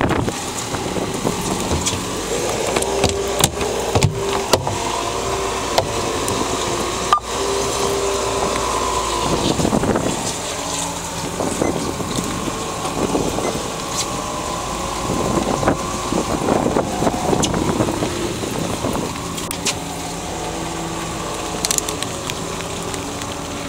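Boat engine idling steadily, with a few sharp clicks.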